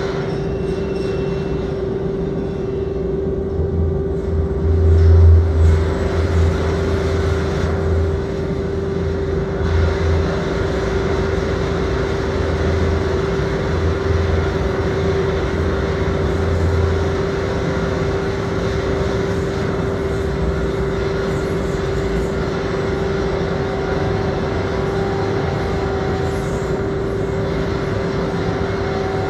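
Electronic drone of a psychoacoustic sound installation played through loudspeakers: a steady held mid-pitched tone over a rushing noise bed. A deep bass throb comes in about three seconds in, is loudest around five seconds and fades out around seventeen seconds.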